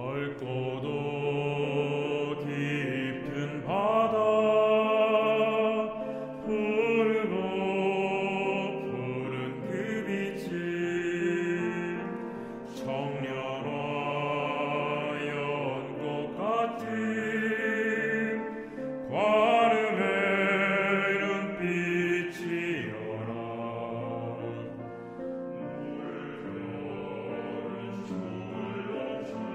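Male vocal ensemble singing a Korean Buddhist hymn in harmony, with some lines echoed by another part.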